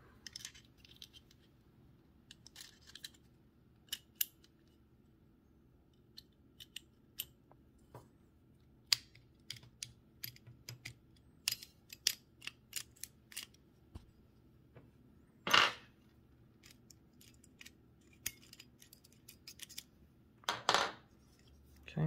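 Small steel parts of a pair of typewriter key ring pliers clicking and tapping irregularly as they are handled and a plate is fitted back into the tool's head, with two louder scrapes, one past the middle and one near the end.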